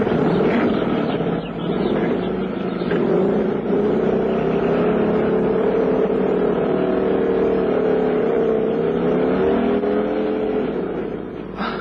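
Radio-drama sound effect of motorcycle engines revving and pulling away, running steadily with a wavering pitch and easing off near the end.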